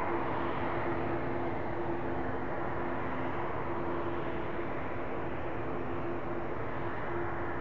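Airbus A220-300 jet engines, Pratt & Whitney PW1500G geared turbofans, giving a steady rumble with a low hum in it that slowly grows a little fainter.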